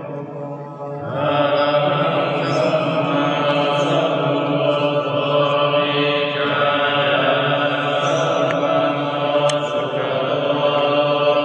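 Buddhist chanting: a group of low voices intoning a mantra together in long, held tones, becoming louder and fuller about a second in.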